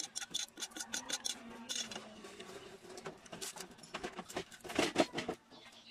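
Close-up mouth sounds of eating: quick wet clicks and smacks from chewing instant noodles, then crisp crackling bites and chewing of a roasted seaweed sheet, loudest about five seconds in.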